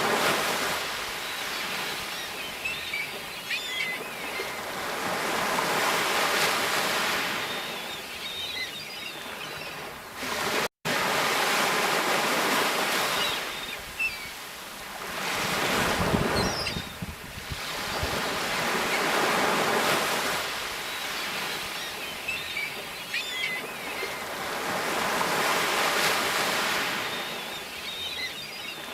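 Sea waves breaking and washing in, with the surf swelling and falling every few seconds. The sound cuts out for a split second about eleven seconds in.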